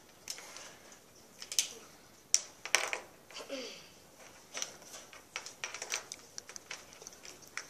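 Highlighters and markers being picked up, set down and tapped on a hard tabletop, irregular light clicks, with the scratch of a highlighter moving over paper.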